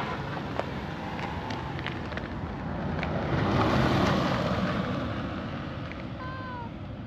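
A motor vehicle passing on the road, its noise rising to a peak about four seconds in and then fading.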